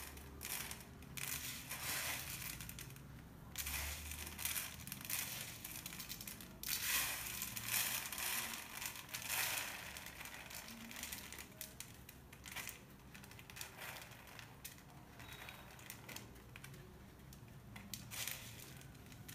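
Dry, thin vermicelli (sevai) strands crackling and crunching in irregular bursts as hands scoop them up and press them onto a batter-coated mashed-potato nest.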